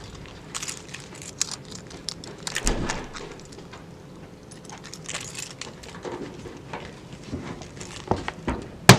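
Scattered clicks and rustling of objects held shut with plastic zip ties being handled and pulled at, then one loud sharp snap near the end as a zip tie is forced apart by hand.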